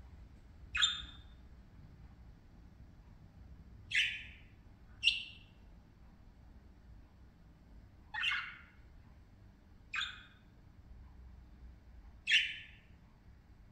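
Pet budgerigars giving short chirping calls, six in all, spaced one to four seconds apart.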